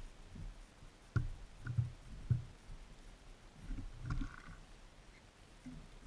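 Birds landing and pecking at a bird feeder right beside the camera: a few dull knocks and light taps, scattered irregularly, with a small cluster near the middle.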